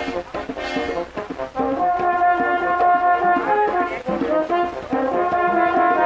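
French horns playing a melody in harmony over a bomba barrel drum, the held chords growing louder about two seconds in.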